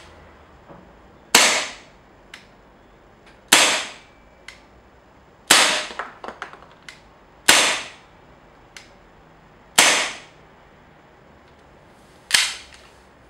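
Green-gas Tokyo Marui airsoft gun firing six single shots about two seconds apart, each a sharp pop with a short ring-out, for a power test of a replacement hop-up rubber. Faint small clicks come between some of the shots.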